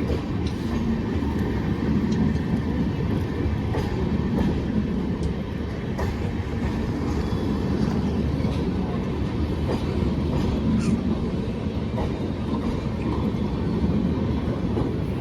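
Express train's passenger coaches rolling past on the track: a steady low rumble with faint scattered clicks from the wheels.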